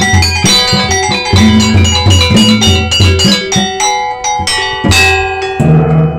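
Banjar gamelan ensemble playing: metallophone keys struck with wooden mallets in a fast, ringing pattern over low kendang drum beats. Near the end the striking stops and the piece closes on one deep stroke that rings on and fades.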